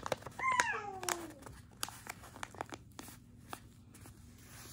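A sheet of paper being handled, folded and pressed flat, with light crinkles and taps. About half a second in, a short pitched cry falls steadily in pitch for about a second and is the loudest sound.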